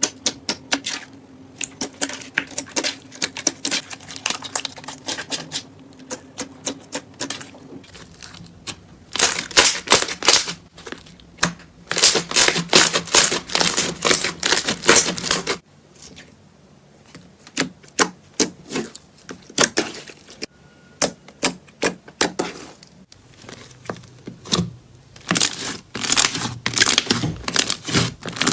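Slime being pressed and worked by hand, its trapped air bubbles popping in rapid, irregular crackling clicks. The sound changes abruptly about 8 and 16 seconds in.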